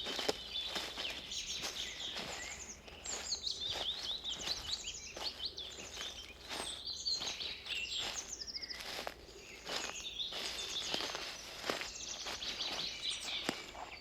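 Several forest birds singing busy, overlapping chirping phrases, with soft footsteps on a forest path at a steady walking pace.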